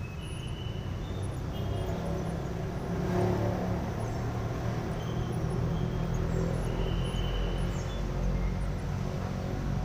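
Steady low rumble of road traffic passing on the flyover overhead, with a few short high-pitched squeaks or chirps over it.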